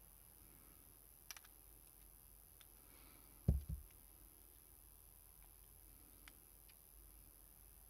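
Faint handling sounds of small metal tool parts: a quick cluster of clicks just over a second in, a soft dull thump about halfway through, and a few scattered light ticks.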